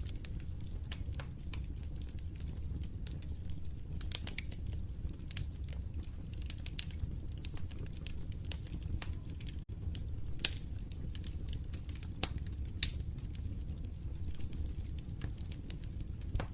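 Wood fire crackling in a fireplace: a steady low rumble of burning with irregular sharp pops and snaps. There is a split-second dropout a little past halfway, followed by a couple of louder pops.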